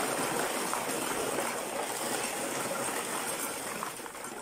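Concrete mix poured from a bucket onto a hollow-block wall, a steady gritty rushing pour that tapers off near the end.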